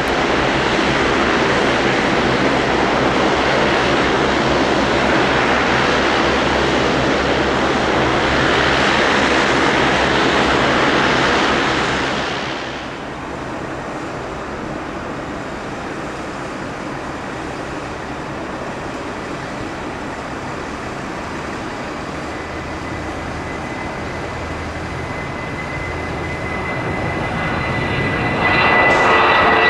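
Airbus A320 jet engines running: a loud steady jet roar that eases off about 12 seconds in, then swells again near the end with a high whine.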